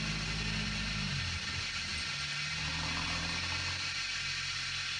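Pickup truck engine running as it drives past, its pitch dropping about a second and a half in, over a steady high hiss.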